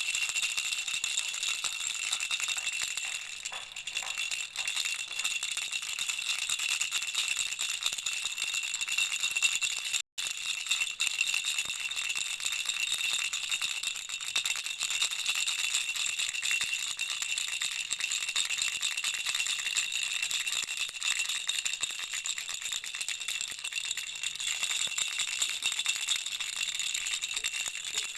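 Baby rattle shaken without a break: a dense, high jingling with a steady ringing running through it. It cuts out for an instant about ten seconds in.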